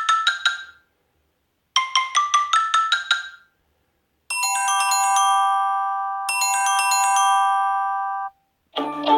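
Samsung Galaxy S6 edge+ ringtones playing. A quick, rising run of marimba-like notes repeats after a short pause, then a sustained chime chord sounds twice, about two seconds each. A new ringtone starts near the end.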